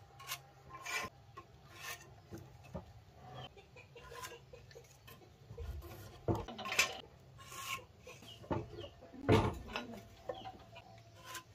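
A marker scratching and a metal carpenter's square and steel rule scraping and tapping on a planed wooden beam as it is marked out, in short irregular strokes.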